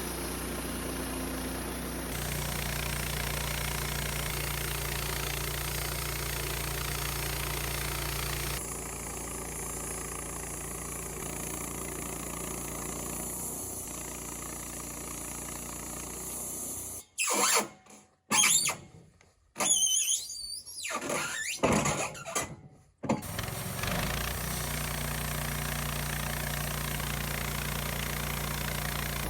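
Wood-Mizer LT15 bandsaw sawmill running steadily as its blade cuts through a cedar log. The sound changes about a third of the way in, and is broken up in the middle by several seconds of short, uneven sounds before the steady running resumes.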